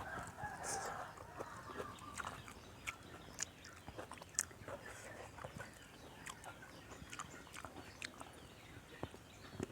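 Chewing and biting on tam sua with chicken feet: irregular small clicks and crunches of eating, close to the microphone.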